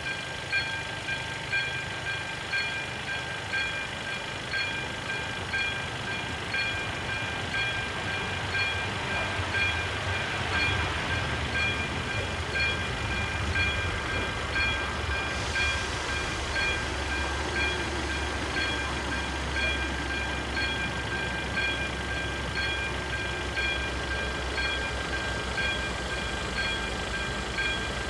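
Electronic warning bell of an AŽD 97 railway level crossing ringing at about one ding a second, signalling that the crossing is closed for an approaching train. A low rumble builds beneath it from about a third of the way in.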